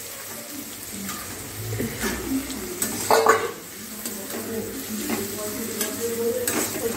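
Sliced onions sizzling in hot oil in a kadai while being stirred and scraped around the pan, with a few louder scrapes, the loudest about three seconds in.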